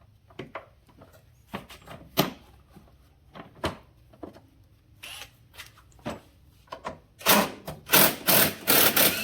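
Scattered clicks and knocks of hand tools and metal parts as a component is worked off an ATV's front suspension, then a run of louder, rougher knocks and scrapes in the last two seconds.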